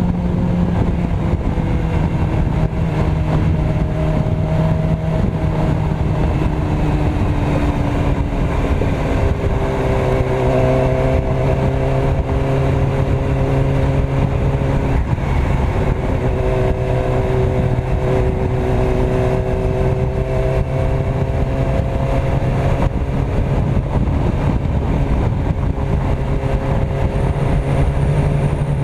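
Yamaha R6's inline-four engine running at steady highway cruising revs under heavy wind rush. The engine note steps down in pitch about eight seconds in, then holds steady.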